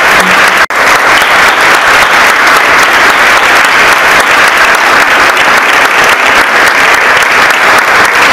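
Audience applauding: dense, steady clapping that breaks off for an instant under a second in, then carries on evenly.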